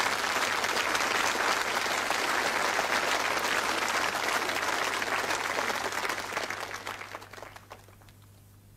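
Studio audience applauding, dying away over the last two seconds or so.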